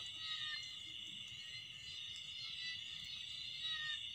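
Night chorus of crickets and other insects trilling steadily and high-pitched, with a few short, lower calls now and then.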